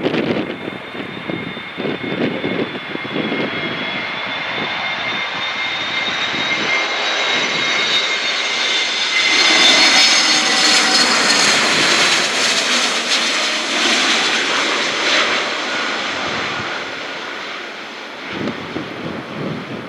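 Airliner passing close by, its engine whine growing louder to a peak about halfway, dropping slightly in pitch as it goes past, then fading. Gusty wind buffets the microphone at the start and again near the end.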